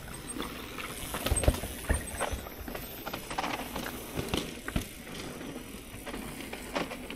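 Mountain bikes on a dirt trail: tyre noise with scattered irregular clicks and knocks of parts rattling.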